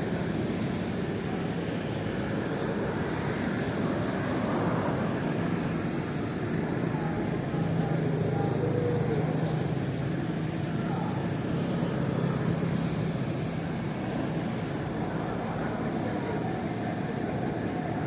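Steady low engine drone from the Majestic Kawanua II fast ferry's engines running, with a hum that holds at one pitch.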